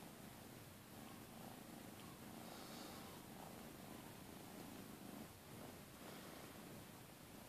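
Domestic cat purring, a faint, steady low rumble.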